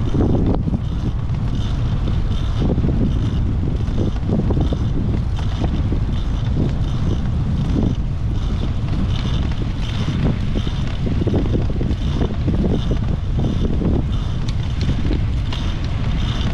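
Wind buffeting the microphone of a GoPro HERO8 mounted low on a moving bicycle's front fork, a steady rumble mixed with the bicycle tyre rolling on asphalt. A faint high-pitched pulse repeats about twice a second throughout.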